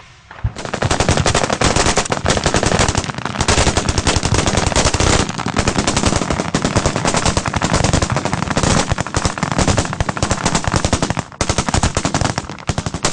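Automatic gunfire from several weapons in long, overlapping bursts of tracer fire, beginning about half a second in, easing briefly near the end, then picking up again before it stops.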